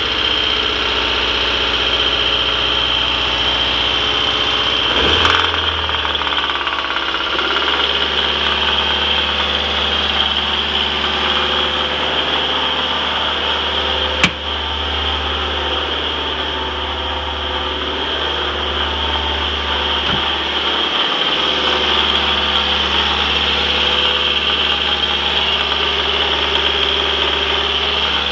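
Rebuilt Mazdaspeed Protege turbocharged 2.0-litre four-cylinder engine idling steadily, with its number one cylinder's plug wire pulled to check for a rod knock behind a rattling the owner hears when it is given gas. The running note changes about five seconds in, and a single sharp click comes about halfway through.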